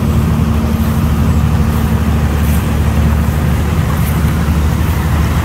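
Water pouring over a small waterfall in a creek: a steady, loud, low rushing that does not let up.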